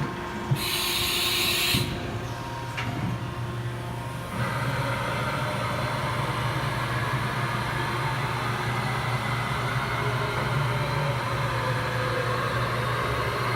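Haas VF-3B CNC vertical machining center running a program: a brief hiss and a clunk near the start, then a louder steady mechanical hum sets in about four seconds in and holds.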